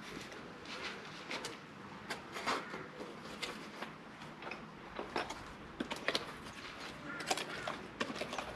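A small cardboard box being handled and opened by hand: scattered rustles, scrapes and light clicks of cardboard and packaging.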